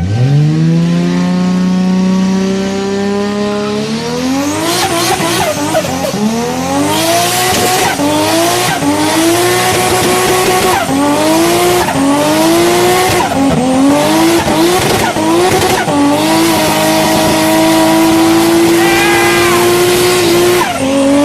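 Toyota Supra engine revving up and holding a steady pitch for a few seconds, then its pitch repeatedly climbing and dropping back under hard acceleration. It holds a steady high pitch near the end.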